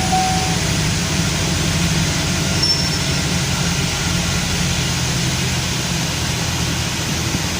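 Chevrolet Camaro engine idling with a steady low hum. The engine is shaking, with its RPM going up and down, which the mechanic is checking against the misfire counter.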